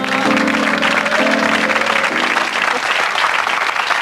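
Studio audience applauding as a song's backing chords hold and then stop a little under three seconds in.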